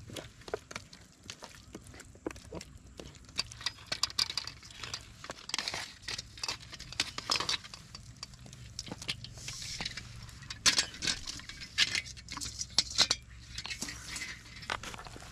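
Irregular clinks, knocks and scrapes of metal kitchen utensils against pots and dishes during cooking.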